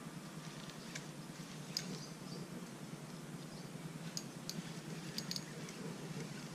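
Fishing reel being cranked to wind line onto its spool: a faint steady whir with scattered light clicks.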